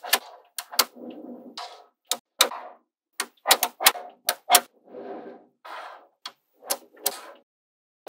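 Small magnetic balls clicking sharply as they snap onto one another, about a dozen irregularly spaced clicks, with softer rattling as balls are shifted and rolled in between.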